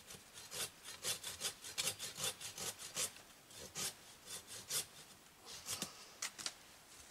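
A sharp hand pruning saw cutting through a live fruit-tree branch overhead, in quick back-and-forth strokes, about three a second, with a brief pause after about five seconds.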